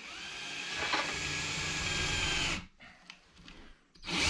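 Ryobi cordless drill boring a long bit into the cabin's wooden wall, running steadily for about two and a half seconds, stopping, then starting again near the end.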